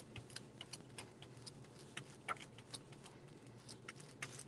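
Faint scattered clicks and light scrapes of paper being pressed and smoothed down on an art journal page, over a low steady hum.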